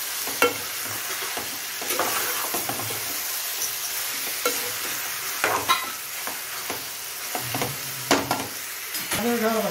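Marinated chicken sizzling in hot oil in a steel pot while a steel ladle stirs it, with the ladle knocking and scraping against the pot several times.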